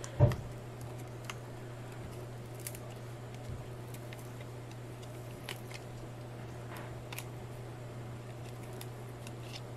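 Silicone wing mold being flexed and peeled off a cured black epoxy resin casting: a soft thump just after the start, then scattered faint clicks and ticks, over a steady low hum.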